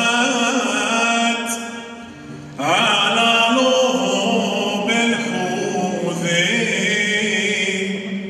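A man sings a slow, melismatic Aramaic song with wavering held notes into a microphone, accompanied by a plucked bağlama (long-necked lute). The voice breaks off briefly about two seconds in and again near the end.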